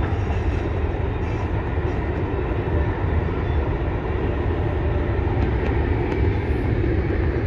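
Long CN intermodal freight train rolling past, a steady low rumble with no breaks.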